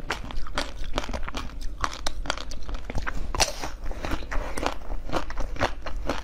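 Teeth biting and crunching through hard frozen basil-seed ice: a quick, uneven run of sharp crunches, several a second.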